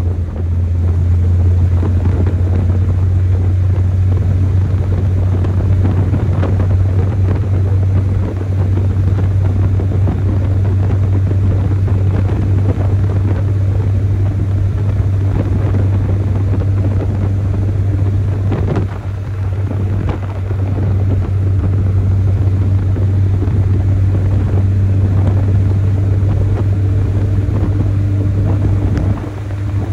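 Chevrolet S10 pickup's stock four-cylinder engine droning steadily at a near-constant pitch, with road and wind noise. The drone dips briefly about two-thirds of the way through and again near the end.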